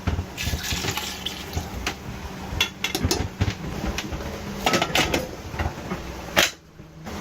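Scattered clinks and knocks of pots, tins and utensils being handled in a boat's galley during cooking, over a low steady hum. The sound drops out abruptly for a moment near the end.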